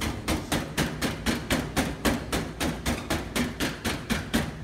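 A palm patting a round of bread dough flat on a stainless steel worktable: quick, even pats, about four or five a second.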